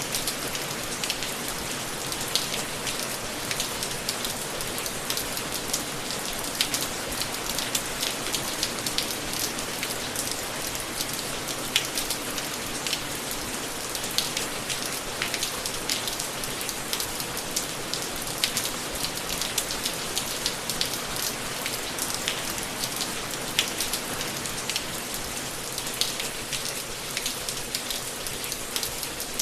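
Steady rain falling on a surface, an even hiss dotted with many sharp ticks of individual drops landing close by.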